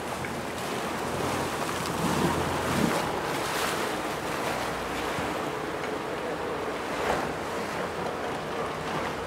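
Sea water sloshing and rushing against a small tour boat's hull, with wind buffeting the microphone and the boat's engine humming low underneath. A few louder splashes come a couple of seconds in and again near the end.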